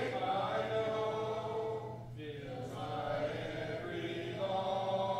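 Congregation singing a hymn a cappella, without instruments, in long held notes. The singing breaks briefly for a breath about two seconds in and again a little after four seconds.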